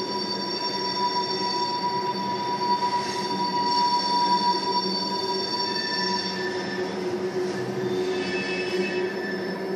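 Oil-train tank cars rolling past, their wheels squealing in several steady high tones over a rumble. The tones shift about two-thirds of the way through as different wheels pass.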